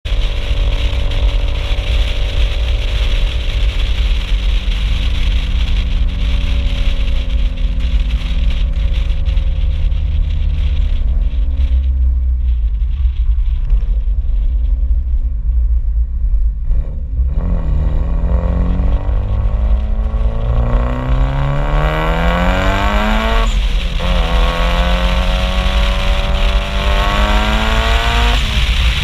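Mitsubishi Lancer Evolution IV's turbocharged four-cylinder engine and exhaust, heard at the rear of the car: revs fall slowly for the first half, then climb hard under acceleration, drop sharply at a gear change about two-thirds through, climb again and fall off near the end. A heavy low rumble runs underneath.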